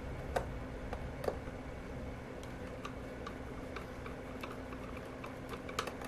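Light, sharp clicks and taps of a small screw and hand tool against the searchlight's metal parts, irregular at first, then about three a second through the middle. A faint steady hum runs underneath.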